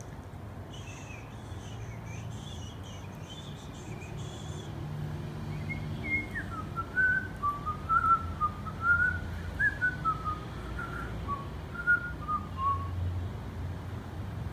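Whistling: a single wandering, rising-and-falling tune from about six seconds in, with faint high chirps in the first few seconds and a steady low hum underneath.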